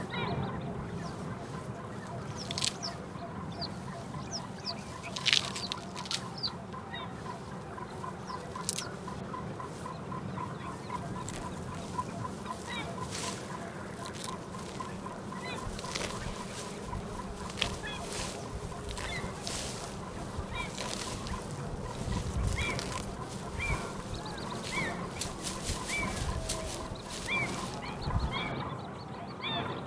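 Domestic fowl calling, with many short, repeated calls, mixed with scattered sharp clicks and knocks.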